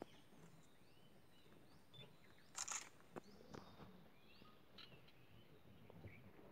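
Near silence: faint, scattered bird chirps, and a brief rustle of handling noise about two and a half seconds in.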